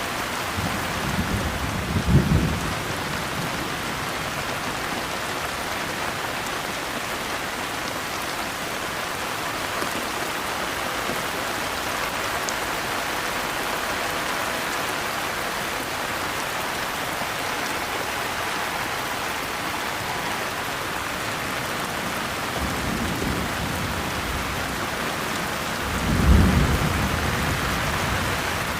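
Steady rain falling, with thunder rumbling twice: a short roll about two seconds in and a longer one building near the end.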